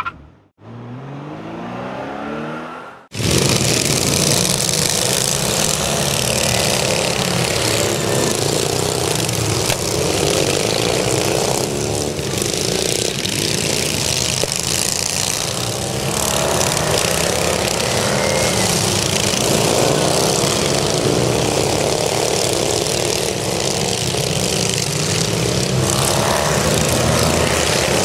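A short intro sound effect under the title, then a pack of racing riding lawn mowers running together at full throttle, their engines overlapping and rising and falling in pitch as they rev through a bend.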